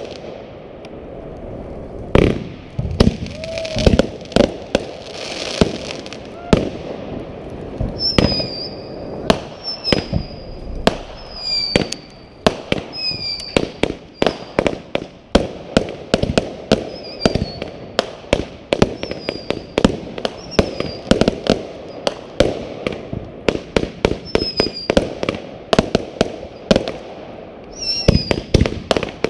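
Fireworks going off: a rapid, irregular string of bangs and pops, with a series of short falling whistles about once a second from about eight seconds in.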